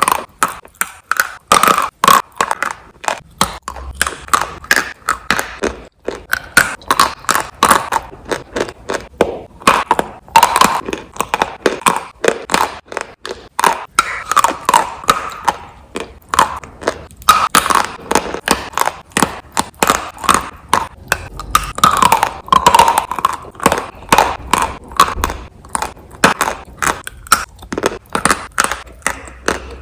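Continuous, irregular crunching and crackling, many sharp cracks a second, with no speech.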